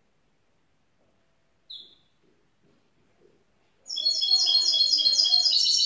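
Young goldfinch × canary mule (mulet chardonneret) singing: one short high note, then a loud, fast run of repeated trilled notes that starts about two-thirds of the way through.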